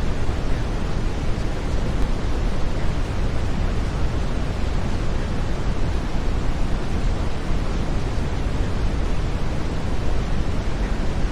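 Steady brown noise: an even, unbroken hiss weighted heavily toward the low end, with no changes.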